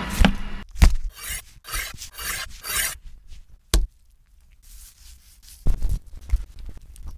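Close-up food-preparation sounds: a utensil scraping through a thick cheesy cracker mixture in several short strokes, with a few sharp clicks, then a few dull taps on a wooden cutting board as the filling is laid on pastry and the pastry is folded.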